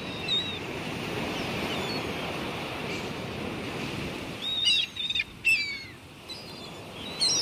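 A steady rushing wash like ocean surf, with birds chirping over it in short falling calls. The calls come in a cluster about four and a half to six seconds in, as the rushing fades away.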